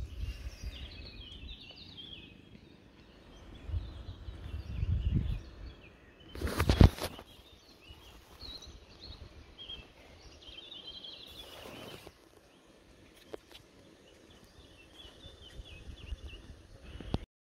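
Small birds chirping and twittering in the background, with a few low bumps and a brief loud noise about seven seconds in, and a weaker one about twelve seconds in.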